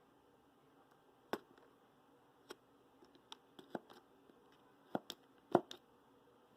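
Irregular handling sounds of unboxing: about ten short clicks and light knocks of objects being picked up and set down, starting about a second in, the loudest a little past halfway.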